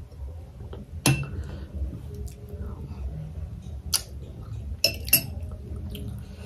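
Metal spoon clinking against a glass cup while scooping, with four sharp clinks: one about a second in, one near four seconds, and two close together about five seconds in.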